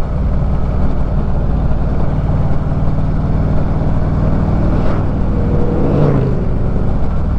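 A motorcycle engine running steadily at cruising speed, heard from the rider's seat. About six seconds in, another motorcycle passes going the other way.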